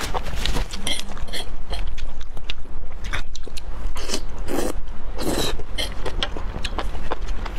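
Eating sounds of sauce-coated enoki mushrooms: wet chewing and short crunchy bites, with two longer slurps as strands are sucked in around the middle. A fork scrapes across the baking tray.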